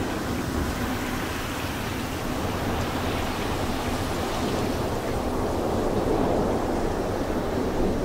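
Typhoon wind and rain: a steady rushing noise with no distinct events, growing slightly louder toward the end.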